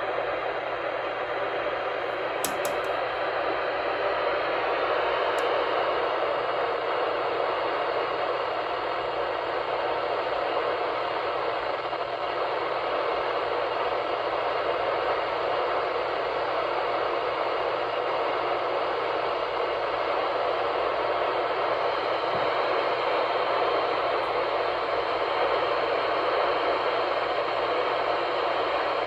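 Radio receiver hissing with a steady, even static, as from a weather radio tuned to a weak station.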